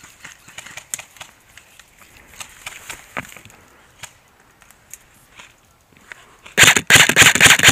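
Airsoft rifle firing a rapid full-auto burst of sharp, fast clicks that starts near the end. Before it, only faint rustling and clicks of movement behind cover.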